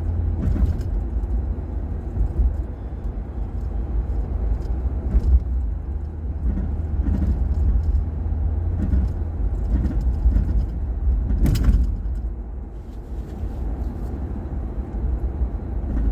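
Road noise inside a moving car's cabin: a steady low rumble of tyres and engine, with a brief sharp knock about eleven seconds in.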